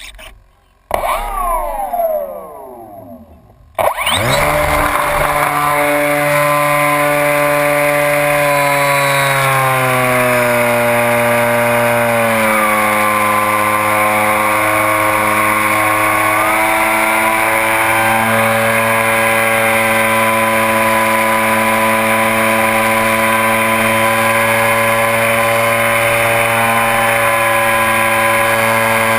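RC airplane's motor and propeller running with a steady buzzing drone, heard close up from the GoPro mounted on the plane. A short falling whine comes first, then the drone cuts in sharply a few seconds in and holds, its pitch dipping slightly a few times.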